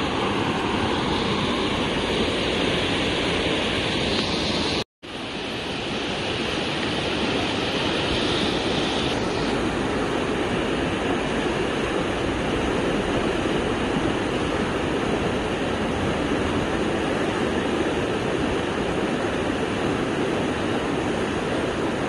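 Fast, turbulent river water rushing and churning, a steady noise. The sound cuts out for a moment about five seconds in, then the rushing resumes.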